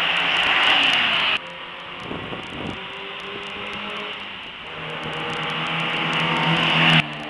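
Sports cars on a wet race track: engines running with a loud hiss of tyre spray. The sound breaks off abruptly about a second in, then a car approaches and builds steadily until it cuts off abruptly near the end.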